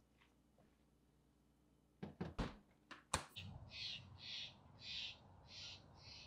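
A few wooden knocks as proofing baskets are set down on a wooden counter, then a bird's harsh, noisy call repeated about twice a second.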